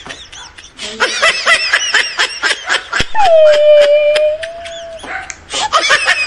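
People laughing hard in quick repeated bursts, broken about three seconds in by a steady high held vocal note lasting about two seconds, after which the laughter starts again.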